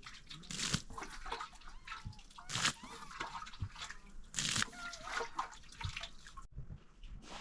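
Water splashing in short bursts, several times at intervals of about two seconds.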